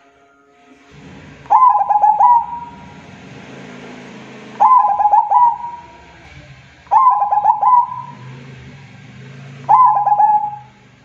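Zebra dove (perkutut) singing: four cooing phrases, each a quick run of staccato notes ending in a held coo, spaced a few seconds apart, over a faint low hum.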